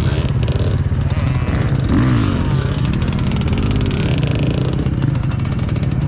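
Motorcycle engine held at high revs through a burnout, the rear tyre spinning on the tarmac, the revs rising and falling in the middle.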